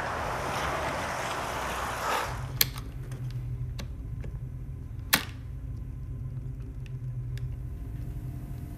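Two sharp metallic clicks about two and a half seconds apart, with a few faint small ticks between them: the chrome latches of an old leather suitcase being worked and snapping. The clicks sit over a steady low hum, after about two seconds of steady street hiss that cuts off.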